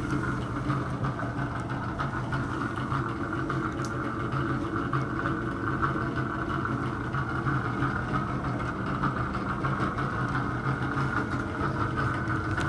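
Bathroom exhaust fan running with a steady hum and a higher whine, which the owner suspects is a failing motor or fan bearing.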